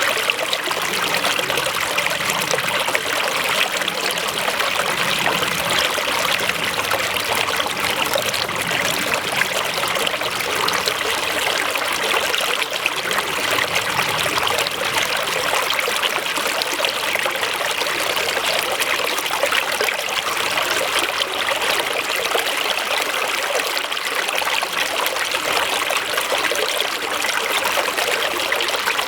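Flowing water, as of a small stream, trickling steadily without pause.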